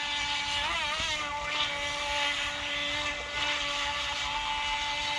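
Small electric motor of a toy-grade RC speedboat whining steadily as the boat runs, the pitch wavering briefly about a second in before settling.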